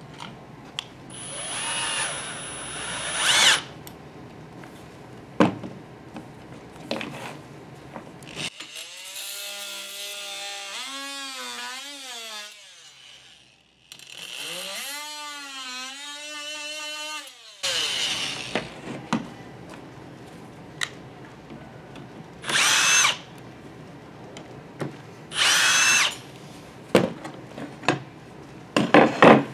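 A cordless drill runs briefly to drive a screw through the metal vent template. Then a corded DeWalt oscillating multi-tool buzzes for about nine seconds cutting the vinyl-topped floor along the template, its pitch dipping and rising as the blade loads. Two short drill bursts back the screws out, and a few sharp knocks come near the end.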